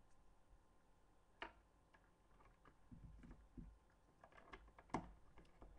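Faint clicks and taps of plastic Lego bricks as transparent window pieces are fitted onto a model, the sharpest click about five seconds in.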